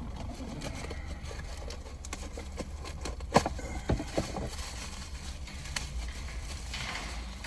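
Scattered clicks and knocks of steering-column parts being handled and fitted by hand, with a sharp click about three and a half seconds in and two smaller knocks just after.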